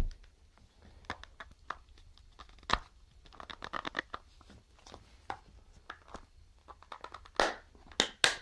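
Fingers prying and scraping at the snap-on plastic back cover of a Jolla smartphone, with scattered small clicks and scratches. There is a sharper click about two and a half seconds in and several louder scrapes near the end.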